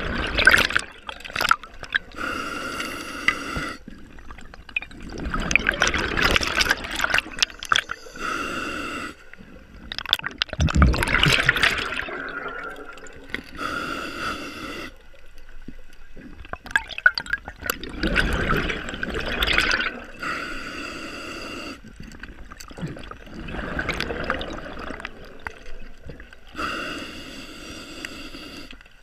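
Scuba diver breathing through a regulator underwater: a short hissing inhale alternating with a longer gurgling rush of exhaled bubbles, in a steady cycle of about one breath every six seconds, five breaths in all.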